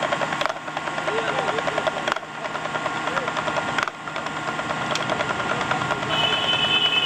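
Busy street noise with voices and a fast, continuous rattling rhythm. A brief high steady tone comes in near the end.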